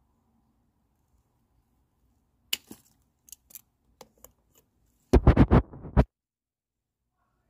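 Scissors snipping through a chili pepper stem: one sharp snip followed by a few light clicks of the blades. Then about a second of loud scraping and rustling of leaves and stems close to the microphone as a hand reaches in among the plant.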